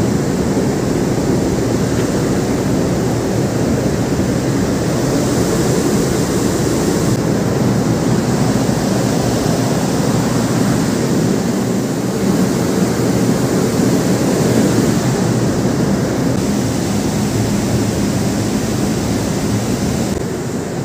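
Steady rushing wind noise on an open ship's deck, shifting slightly in tone a few times.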